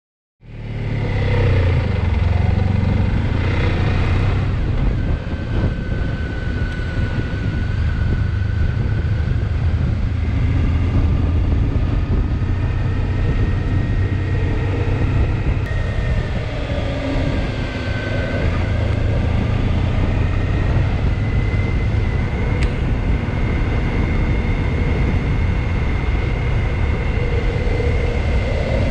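Honda ST1300 Pan European motorcycle under way, its V4 engine running at a steady pace with road and wind noise. The sound cuts in suddenly at the start and then holds steady.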